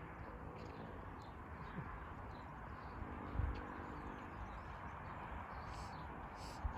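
Outdoor ambience: a steady hiss of open-air noise with faint, short bird chirps and a couple of soft low thumps, one about halfway through and one at the very end.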